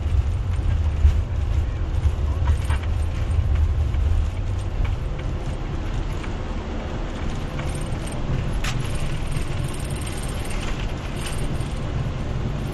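Steady low rumble inside the cockpit of a four-engine Airbus A340 during take-off and climb: engine and airflow noise. It is heaviest for the first few seconds, then eases a little, with a few faint clicks.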